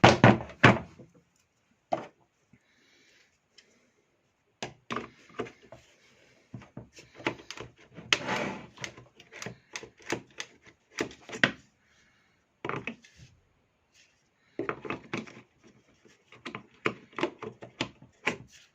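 Irregular clicks, knocks and rattles of an electric chainsaw's parts being handled and worked loose during disassembly, coming in clusters with a couple of short pauses.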